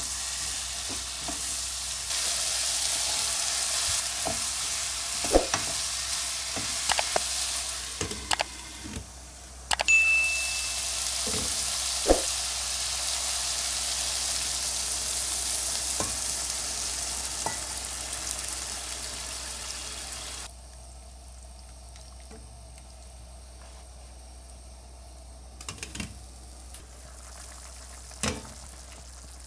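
Sheep heart and kidney pieces frying in a pan with a steady sizzle, a wooden spatula knocking against the pan now and then as they are stirred. The sizzle stops abruptly about two-thirds through, leaving a much quieter background with a few light clicks near the end.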